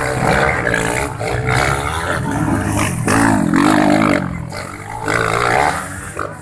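Several motocross bikes revving hard as they climb a dirt track. Their engine pitch rises and drops again and again, and the sound fades near the end as the last bike pulls away.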